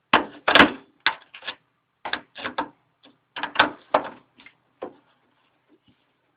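Plastic parts of a television being handled during disassembly: a quick, irregular run of clicks and knocks, the loudest about half a second in.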